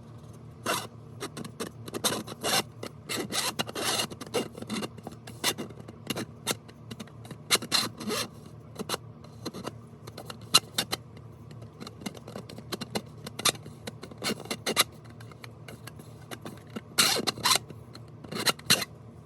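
Parts of a 3D-printed plastic puzzle box being twisted and slid against each other, giving many short, irregular scrapes and clicks.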